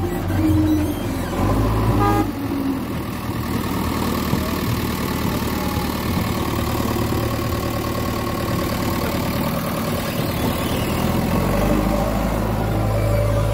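JCB backhoe loader's diesel engine running as the machine moves about on loose earth, its note shifting as the load changes.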